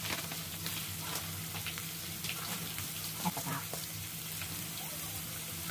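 Field snails sizzling in a stainless-steel pot, a steady frying hiss with scattered light clicks.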